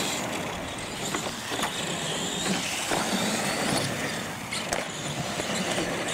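A radio-controlled ATV model running on a concrete track, its motor and tyres making a steady whirring noise, with a few short knocks.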